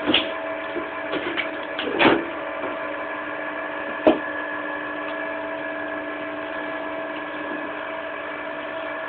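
Electric motor of a screw-cone wood splitter running with a steady hum, as a log is forced onto the spinning cone. Wood cracks sharply about two seconds in and again about four seconds in, with small splintering clicks just before the first crack.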